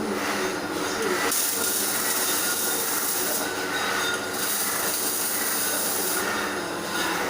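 MIG welding arc crackling and hissing in two bursts of about two seconds each, each starting and stopping abruptly as the torch is triggered, over a steady lower hum.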